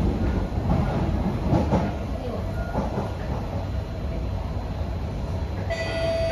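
Kawasaki–CRRC Sifang C151B metro train heard from inside the car, running on the rails with a steady low rumble and a few clacks. Near the end, an electronic chime starts, two notes falling in pitch, the chime that comes before an onboard station announcement.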